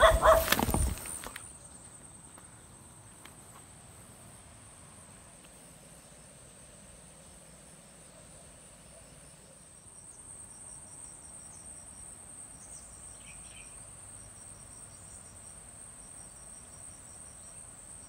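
Faint insect chorus: a steady high-pitched buzz with rows of quick, evenly pulsed chirps. A short burst of microphone rumble opens it.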